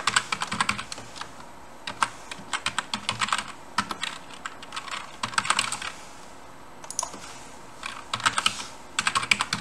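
Computer keyboard typing in several quick bursts of keystrokes with short pauses between them.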